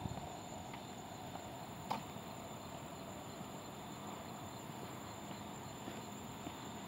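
Night insects, crickets, trilling steadily in a high-pitched chorus, with a single sharp click about two seconds in.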